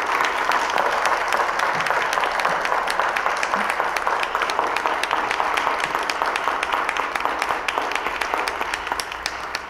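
A small audience applauding: many hands clapping steadily, then thinning out and fading near the end.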